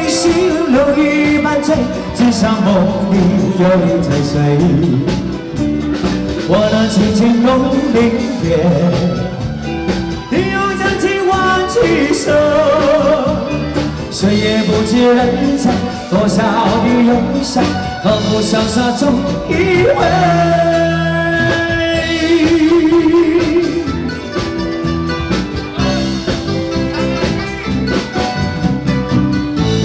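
A singer performing a song live over band accompaniment with drums, the melody line sliding and holding long notes.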